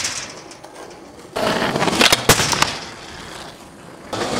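Skateboard wheels rolling on concrete, with a sharp crack just past halfway and a few smaller clacks after it, the board's pop and landing. The rolling fades, and fresh rolling starts near the end.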